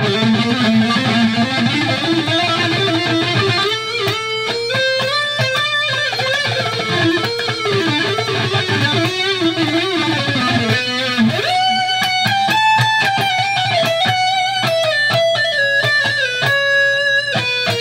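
Electric guitar played through an amp: fast single-note runs, shifting about eleven seconds in to higher held notes bent and shaken with vibrato. A steady low amp hum sits underneath.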